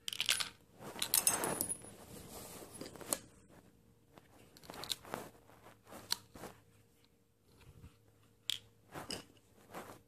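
Plastic parts of a washing machine drain pump handled by hand: scattered clicks, scrapes and crunchy rustling, busiest in the first two seconds, then a few separate sharp clicks.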